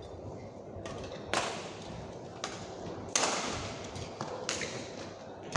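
Badminton rally: rackets striking a shuttlecock, several sharp hits at uneven spacing, three of them loud, each ringing briefly in the hall.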